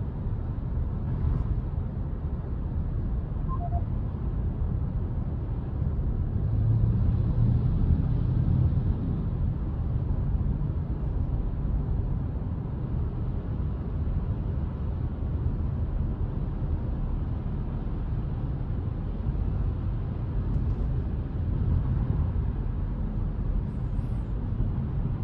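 Steady low rumble of tyre, road and engine noise inside the cabin of an Alfa Romeo Junior Speciale mild hybrid on the move, swelling slightly for a few seconds partway through.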